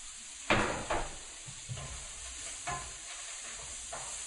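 Stir fry of squash, onion and peppers sizzling in a skillet. There is one loud clatter about half a second in, then a few softer knocks as it is stirred.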